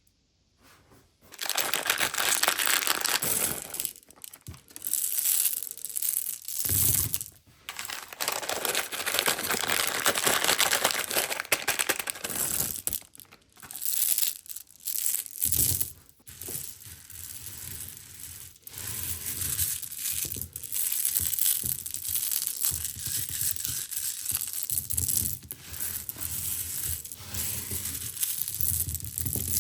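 Hard-shelled candies rattling and clattering in a dense stream of small clicks, with packaging crinkling; it starts about a second and a half in, with dull handling thuds later on.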